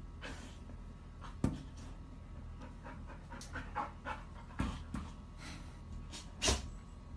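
Golden retriever panting with its open mouth and nose pressed against glass, licking at it. Its muzzle knocks sharply on the glass several times: about a second and a half in, about four and a half seconds in, and loudest near the end.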